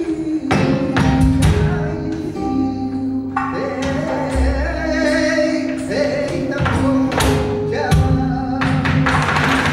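Live flamenco music: a male cantaor sings long, gliding notes over flamenco guitar, with several sharp percussive strikes and low thumps through it.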